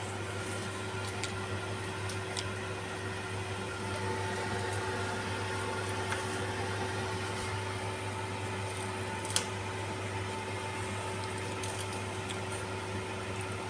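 Vegetables and bean sprouts stir-frying in a pan, tossed with wooden spatulas: a steady frying hiss with a few light clicks of the spatulas, over a constant machine hum.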